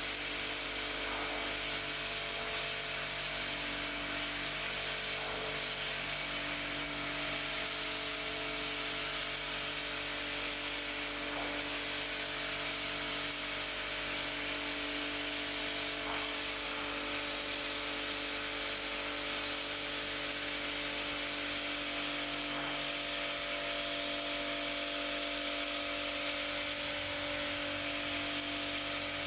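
Water spraying steadily onto the rug, a continuous hiss with a steady hum beneath it and a few faint clicks.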